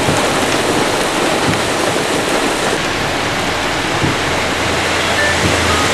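Heavy rain pouring down in a storm, a dense steady hiss that starts suddenly.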